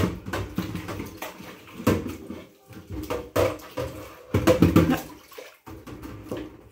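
Dishwater sloshing and splashing in a stainless steel kitchen sink as a large plate is scrubbed with a sponge, with irregular knocks of the plate in the sink.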